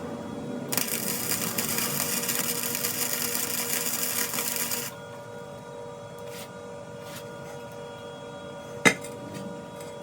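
An electric welder's arc crackling steadily for about four seconds as it welds up a hole in a rusty steel wheel rim, starting and stopping abruptly. A single sharp click comes near the end.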